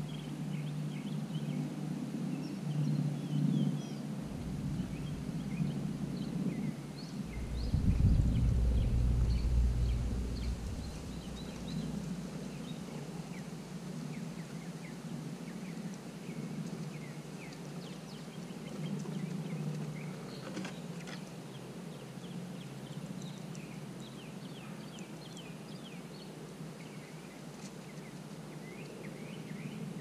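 Outdoor backyard ambience: a steady low rumble that swells for a few seconds about eight seconds in, with scattered faint high ticks and chirps throughout.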